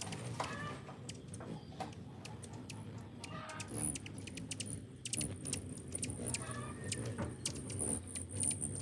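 Hummingbirds at feeders chipping and twittering: many sharp, high-pitched ticks at an uneven rate, over a thin, very high squeaking that comes and goes and grows steadier near the end.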